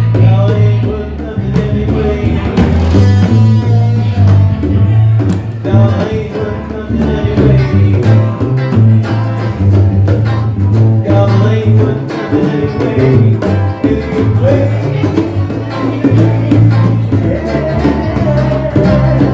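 Live band playing loud: guitar over a pulsing bass line, with a singer's voice.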